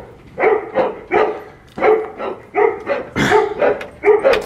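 A dog barking repeatedly, about two sharp barks a second, without a pause.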